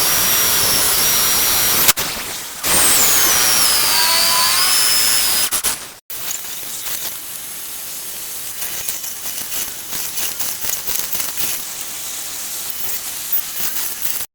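Electric drill boring into wood, its motor pitch sliding down as it bites, in short clips with abrupt cuts; after about six seconds a quieter, rougher cutting noise.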